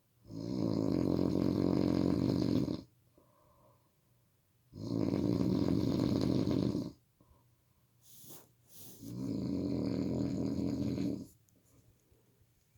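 A person snoring loudly in sleep: three long snores, each lasting a little over two seconds and coming about every four and a half seconds, with quiet gaps between them.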